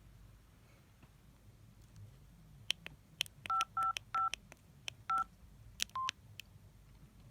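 Samsung SGH-D600 mobile phone keypad being pressed: a string of sharp key clicks, with four short two-note key-tone beeps about three and a half to five seconds in and a single lower beep near the end.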